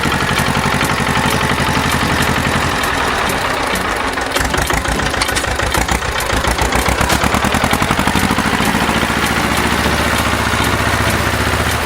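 A vehicle engine running steadily with a rapid, even chugging. Its low rumble thins for a few seconds in the middle.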